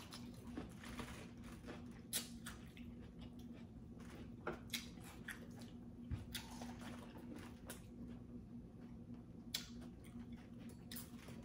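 Quiet eating of a seafood boil: chewing, with scattered small clicks and crackles of shells and food being picked apart.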